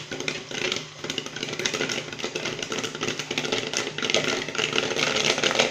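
Corn popping in the kettle of a homemade 12-volt popcorn machine: rapid, irregular pops over the steady hum of the stirring motor. The popping grows denser and louder toward the end as the batch comes to full pop.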